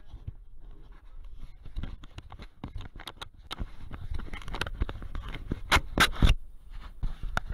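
Bicycle rattling and clattering over a rough surface: a run of sharp knocks that grows denser and louder, loudest about six seconds in, over a steady low wind rumble on the microphone.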